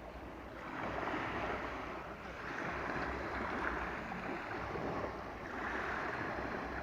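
Surf of the Azov Sea washing onto the shore, a hissing rush that swells and eases every two to three seconds as each wave comes in.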